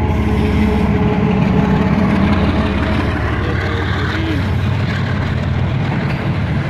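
Pakistan Railways GEU-40 diesel-electric locomotive passing close by, its engine's tone fading within the first second or two. Passenger coaches follow, rolling past with a loud, steady wheel-on-rail rumble.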